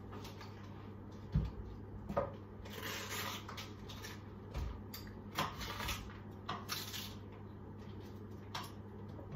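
Outer leaves being torn and peeled off a cabbage head: crisp rustling and crackling in several bursts. Twice, a dull thump of the cabbage against a wooden chopping board.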